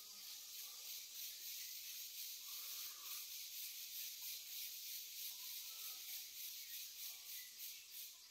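Insect chorus in the surrounding forest: a steady high-pitched hiss with a quick, even pulse.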